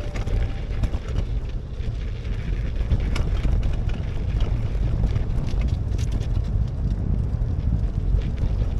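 Wind buffeting the microphone: a steady, dense low rumble with a few faint clicks.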